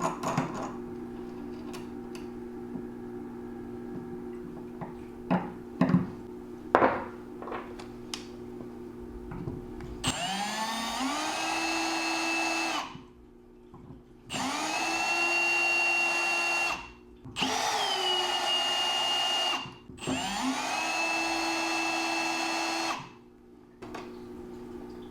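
Small hand tools clicking and knocking against metal fittings, then a power drill run four times in bursts of two to three seconds. Each burst spins up with a rising whine and then holds a steady pitch.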